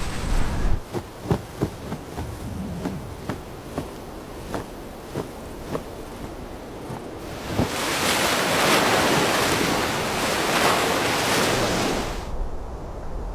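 Irregular sharp clicks and knocks, then a loud steady rushing noise, like surf or wind, that starts about seven seconds in and cuts off suddenly about a second before the end.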